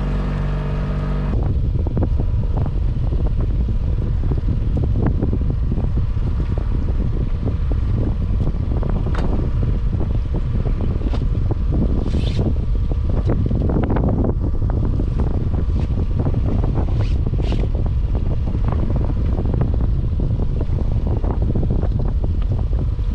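Wind buffeting the microphone in a heavy low rumble, with scattered light knocks and clicks. In the first second or so a steady motor hum is heard, and it cuts off abruptly.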